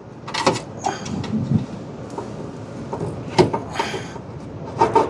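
Scattered clicks, knocks and a brief rattle of hand tools being handled, as a stubby Phillips screwdriver is fetched.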